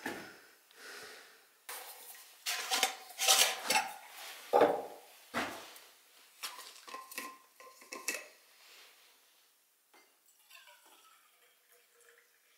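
Metal clinks and clatter of a metal thermos and cup being handled, followed near the end by hot liquid being poured softly into the cup.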